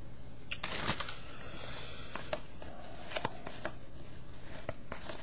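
Trading cards being handled and flipped through by hand: a few light, scattered clicks and brief swishes of card against card over a faint steady room hum.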